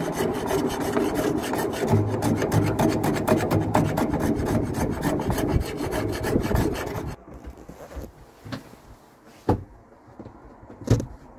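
Quick rasping strokes of a hand plane shaving down the edge of a wooden door, stopping about seven seconds in. A few light knocks follow.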